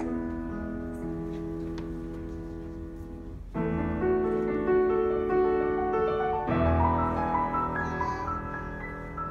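Grand piano played solo: a held chord fades away, then a loud chord is struck about three and a half seconds in and another about three seconds later, each ringing on under a melody line.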